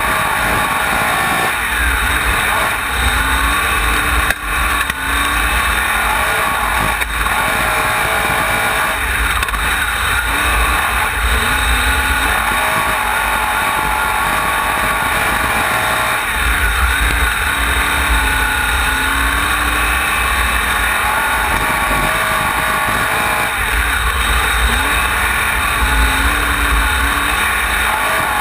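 Onboard sound of a wingless sprint car's engine at race speed on a dirt oval, the throttle opening and closing in a regular cycle, with a heavy low rumble swelling about every seven seconds as the car powers off the turns.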